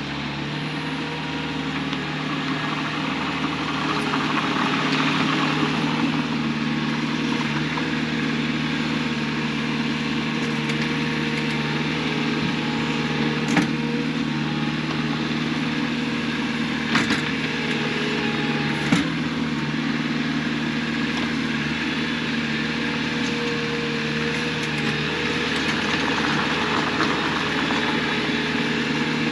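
Diesel engine of a piece of earthmoving equipment running steadily while backfilling a trench, with three short sharp knocks partway through.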